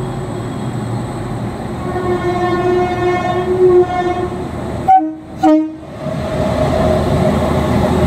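Indian Railways WAP-7 electric locomotive sounding its horn as it rolls slowly past: one long blast, then two short, louder blasts about five seconds in. Under the horn, the locomotive's running noise grows louder as it draws close.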